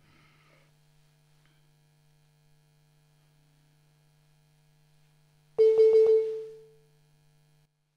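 Faint steady hum for about five seconds, then a quick flurry of about four mallet strikes on a balafon, the West African gourd-resonated xylophone, mostly on the same note, ringing out for about a second.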